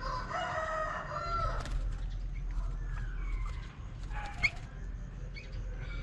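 A rooster crowing once, a pitched call about a second and a half long, followed by scattered short bird chirps and a brief sharp sound about four and a half seconds in.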